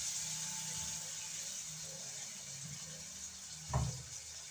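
Kitchen tap running into a stainless-steel sink, with one sharp knock near the end.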